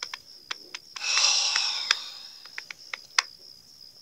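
A long breathy sigh about a second in, fading out over a second or so. Under it there is a steady high thin whine with scattered sharp ticks.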